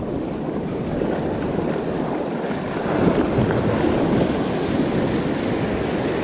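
Ocean surf breaking and washing up around the feet, with wind buffeting the microphone.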